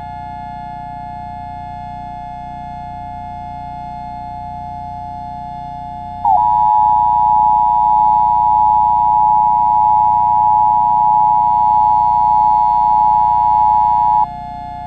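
A steady synthesizer drone plays throughout. About six seconds in, a loud two-tone Emergency Alert System attention signal starts abruptly over it, holds for about eight seconds and cuts off.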